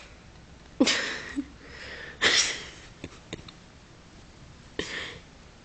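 Three sharp, breathy vocal bursts from people watching a Jenga tower, the first with a short voiced cry, and a couple of faint clicks of wooden blocks between them.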